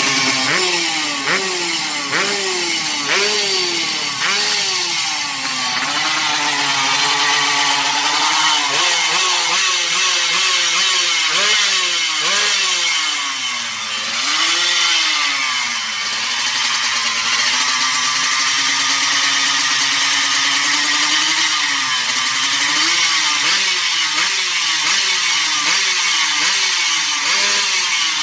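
Yamaha RX-King's single-cylinder two-stroke engine being revved repeatedly, its pitch rising and falling: about six quick throttle blips in the first five seconds, then slower, longer rises and drops in revs. It runs through a stainless 'piton' expansion-chamber exhaust.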